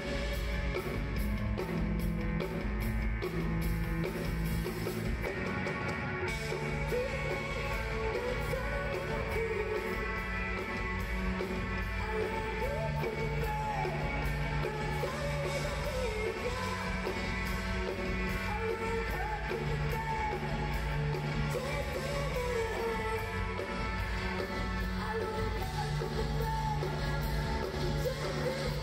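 Rock band playing live: electric guitar, bass and drum kit, with a woman's sung vocal coming in several seconds in.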